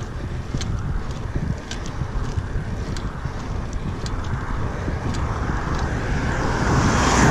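Wind buffeting the microphone of a camera riding on a road bicycle, over the rumble of tyres on asphalt. Light clicks come about once a second, and the noise swells near the end.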